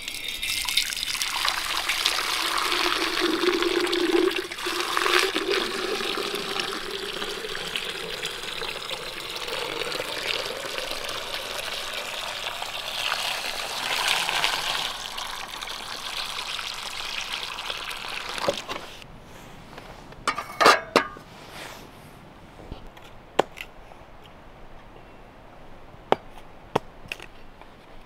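Water poured in a steady stream into a metal samovar, splashing and filling for about eighteen seconds before it stops. Then a few short, sharp clicks and knocks.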